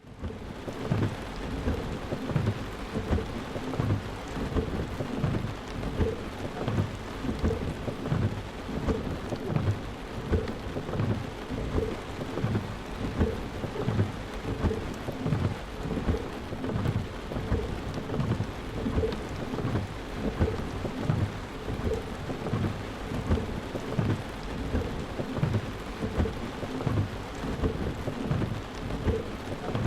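Thunderstorm sound effect: heavy rain falling steadily, with low rumbling thunder that swells and fades about once a second.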